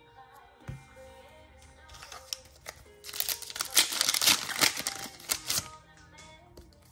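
Foil booster pack wrapper crinkling as it is torn open, a dense crackle lasting about three seconds in the middle, over quiet background music.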